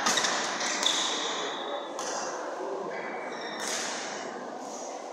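Badminton racket strikes on a shuttlecock, a few sharp hits echoing in a large hall, with court shoes squeaking on the floor as players move.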